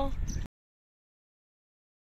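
The tail of a long, steady-pitched drawn-out 'hello', with wind rumbling on the microphone and a faint high bird chirp, then the sound cuts off abruptly about half a second in, leaving dead digital silence.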